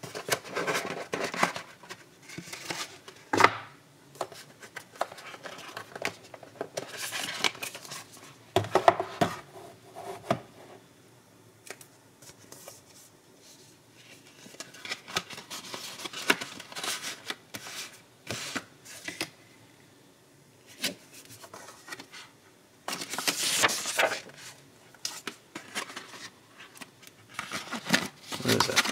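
White cardboard box and paper packaging being handled: irregular rustling, scraping and light knocks, on and off with short quiet gaps.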